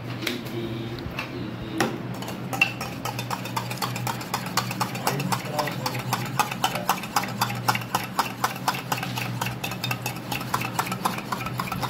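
Eggs being beaten in a bowl: quick, regular clicks of the utensil against the bowl, about four or five a second, starting a couple of seconds in.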